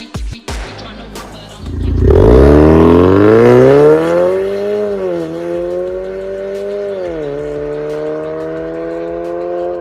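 Ford Kuga EcoBoost 250's engine through an MS-R valved catback exhaust, accelerating hard from about two seconds in. The note climbs steeply, then drops sharply twice, about five and seven seconds in, at upshifts, climbing again after each one.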